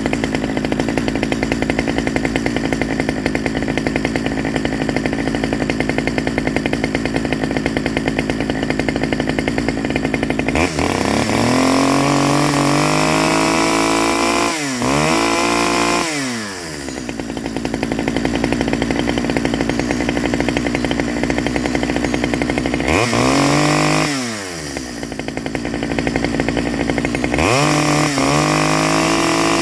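Stihl 009 top-handle two-stroke chainsaw idling, then revved up three times, the pitch climbing and falling back to idle each time. The owner judges it to be running way too rich on its stock carburettor.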